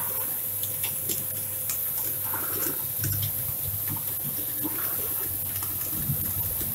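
Roasted coffee beans swishing and rattling as the coffee roaster's cooling-tray stirring arm turns them, with many small clicks of beans over the steady hum of the machine's motor.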